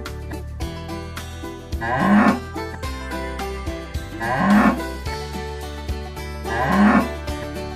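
Cow mooing, three loud moos about two seconds apart, over steady background music.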